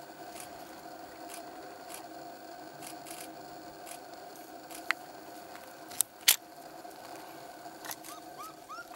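Camera shutter clicking, with two sharp clicks in quick succession about six seconds in and fainter clicks earlier, over a steady background hum. A few short rising chirps near the end.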